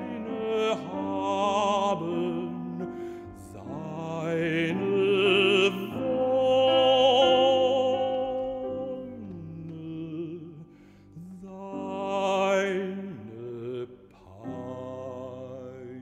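Baritone singing a Lied with piano accompaniment, holding long notes with vibrato. Toward the end the voice stops and quieter piano chords carry on.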